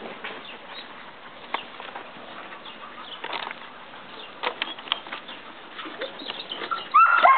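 Quiet outdoor background with scattered faint chirps and clicks, then about seven seconds in a dog breaks into loud, high-pitched yipping.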